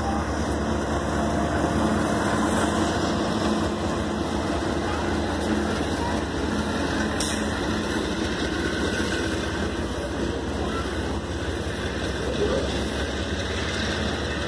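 Union Pacific freight train passing: the diesel locomotive's engine hums as it goes by in the first few seconds, then loaded covered hopper cars roll past with a steady rumble of wheels on rail.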